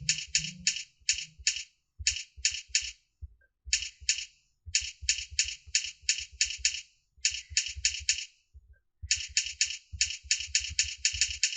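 Computer keyboard keys being typed in quick runs of short clicks, about four to five a second, with brief pauses between runs, as J, F and space-bar keystrokes are entered for a beginner typing drill.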